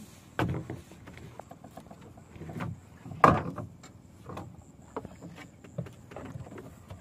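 Irregular knocks and splashes aboard a small fishing boat: water slapping the hull and hard thumps, about one a second, the loudest about three seconds in.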